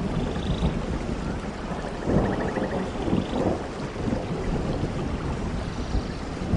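Steady rain falling on forest leaves and ground, over a low rumble that swells about two seconds in. Faint short trills sound high above it now and then.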